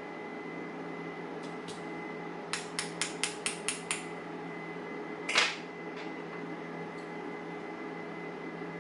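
Small metal clicks and taps from a lock cylinder being worked to free a stuck hollow pin follower: a quick run of about six taps, then one louder, brief metallic rattle about five seconds in.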